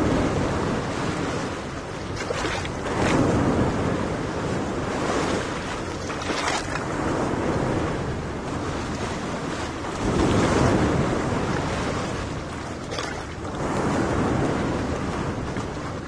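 Small sea waves washing onto a sandy beach, the surf swelling and easing every few seconds, with wind blowing across the microphone.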